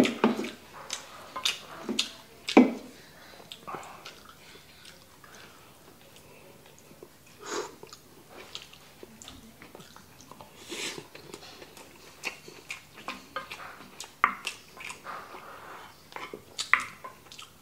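Close-up mouth sounds of chewing kimchi fried rice, with short clicks and smacks, and a wooden spoon scraping and knocking against a nonstick frying pan as more rice is scooped. The sounds are loudest in the first few seconds.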